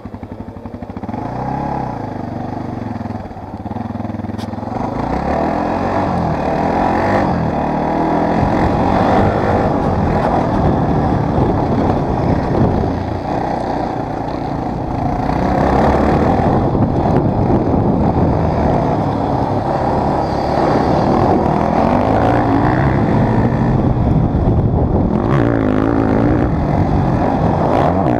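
Dirt bike engine revving up and down while being ridden, then pulling harder and louder from about five seconds in.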